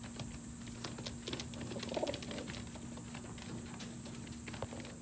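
Domestic pigeons in a loft: many light taps of claws and beaks on a wooden floor, with a short coo about two seconds in, over a steady low hum and hiss.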